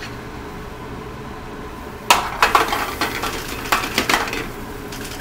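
Metal sauté pan being shaken and tossed on a gas burner's grate, clattering and scraping in a run of sharp knocks starting about two seconds in, over steady background noise.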